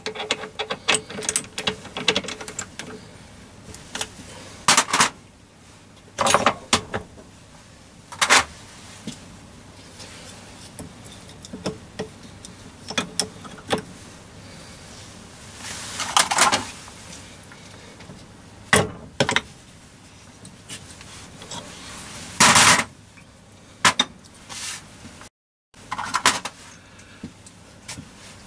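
Irregular metallic clicks, knocks and clatter of a chuck key and hand tools working a lathe's three-jaw chuck as a workpiece is set and tightened in the jaws. A couple of longer, louder clatters come about sixteen and twenty-two seconds in.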